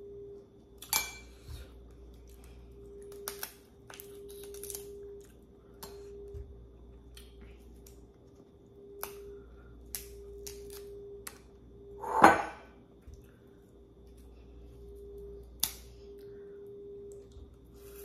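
Cutlery and dishes clinking and tapping while someone eats, a scatter of short sharp clicks, the loudest about twelve seconds in.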